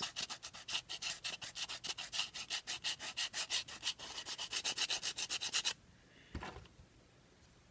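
Sanding block rubbed in quick, even strokes along the edge of a cured resin geode coaster, scraping the rim smooth. The sanding stops about six seconds in, followed by one soft knock.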